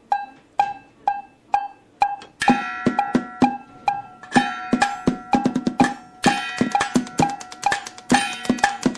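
Improvised percussion on everyday objects: a single pitched knock repeats steadily about twice a second, then about two and a half seconds in more strikes join in a faster, busier pattern over a held ringing tone.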